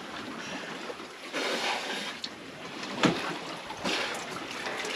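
Water poured from a bowl splashing over a person's head and shoulders, in a few hissing bursts over steady wind and sea noise, with a brief knock about three seconds in.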